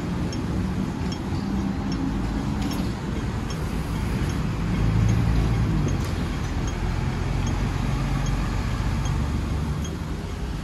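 Hong Kong double-decker electric tram running along its street track: a steady low rumble of wheels and motor hum, swelling briefly about five seconds in.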